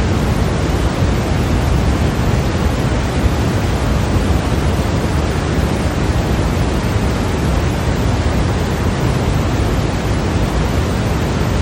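Steady, unbroken white noise played for sleep, an even hiss that is heavier in the bass than in the treble.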